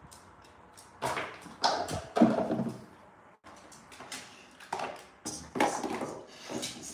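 A dog handling its toys on a tiled floor: a string of irregular knocks, scuffs and clatters, starting about a second in.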